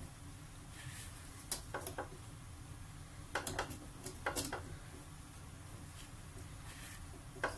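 Hands handling dry shredded kunafa dough in a metal tray, with a few soft clusters of short taps and rustles as the dough is scooped from a plastic bowl and rubbed with powdered sugar.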